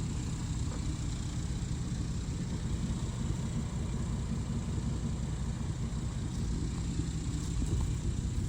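2006 Saab 9-3 Turbo engine idling steadily with a low, even rumble; the owner says it is running fine now but expects its ECU to fail again.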